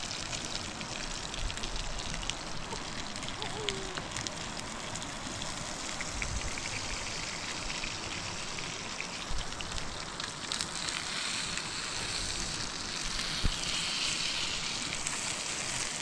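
Food sizzling in oil in a frying pan over an open wood fire, a steady hiss peppered with small crackles. The hiss grows brighter and louder about two-thirds of the way through, with one sharp tick shortly after.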